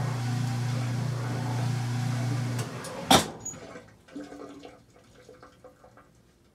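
Kenmore 800 washing machine running with a steady hum that cuts off about two and a half seconds in, followed half a second later by one loud sharp click. Scattered faint ticks and drips follow as the machine falls quiet.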